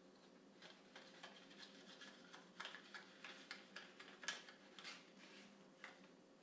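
Scattered light ticks and taps of small wooden pieces being handled against a steel hand plane, the sharpest about four seconds in, over a faint steady hum.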